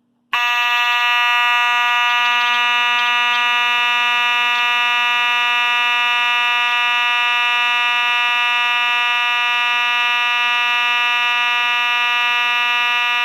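Simplex 2903-9001 mechanical fire alarm horn switching on a moment in and sounding continuously with a loud, steady buzzing tone.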